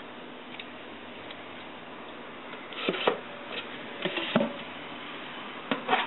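Black plastic coffee can being handled and worked with a hand punch to make a hole through the plastic: a few short plastic clicks and knocks about halfway through, and another just before the end.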